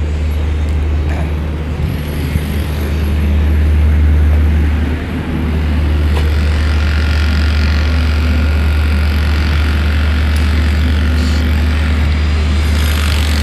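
Wind buffeting the microphone on an exposed ship's deck: a loud, steady low rumble with a hiss over it, swelling about four seconds in and dipping briefly just after.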